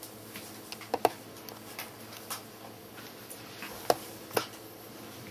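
Border Collie puppies play-fighting, giving a handful of short, sharp clicks and squeaks. The loudest come as a close pair about a second in and two more about four seconds in.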